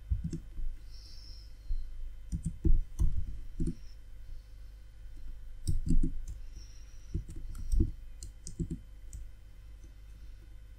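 Typing on a computer keyboard: irregular keystrokes in short runs with pauses between, over a faint steady low hum.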